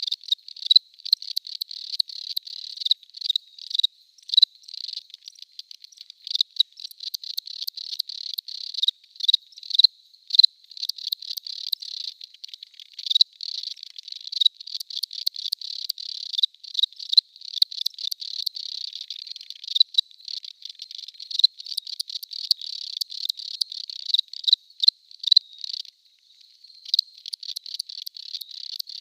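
Cricket chirping: rapid trains of high-pitched pulses around 4 kHz, with louder sharp chirps standing out and brief pauses now and then.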